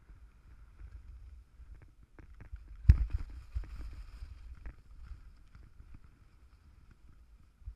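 Skis running over packed snow, heard through a GoPro: a low rumble throughout, with a sharp knock about three seconds in followed by a couple of seconds of scraping hiss as the skis bite into a turn.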